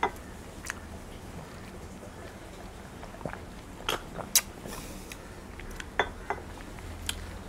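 Chewing latok (sea grapes): scattered soft pops and clicks as the juicy beads burst in the mouth, over a low steady background.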